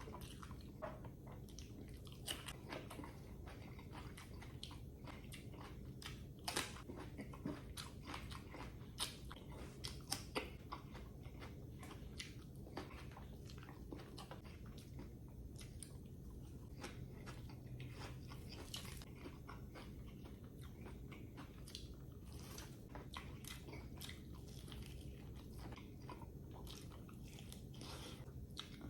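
Close-miked eating: crunchy fried chicken wings being bitten and chewed, with many sharp crisp crunches scattered throughout over a steady low hum.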